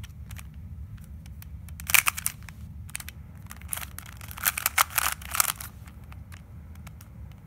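Layers of a plastic 3x3 twisty puzzle cube with push-on tiles being turned by hand: clusters of quick clicks and clacks, loudest about two seconds in and again from about four and a half to five and a half seconds.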